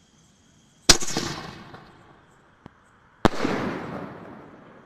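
Rock and Roll sky shot firework shells bursting in the air: two sharp bangs a little over two seconds apart, each trailing off over about a second.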